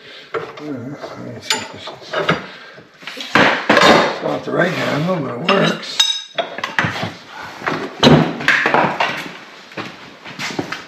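Steel tools and a steel bar clanking and clinking against a cast-iron bench vise and the metal workbench, in irregular knocks. About six seconds in comes a sharp ringing metal strike.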